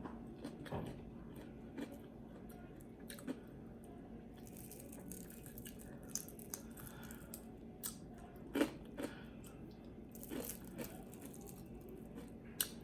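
A person chewing food close to the microphone, with irregular crunches and wet mouth clicks and smacks, the loudest about two-thirds of the way in.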